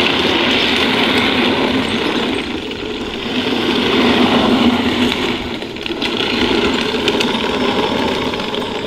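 A 1/6-scale Armortek Tiger I tank model driving on asphalt, its metal track links clattering and its electric drive running under load. The noise is continuous, swelling and easing as the tank moves about.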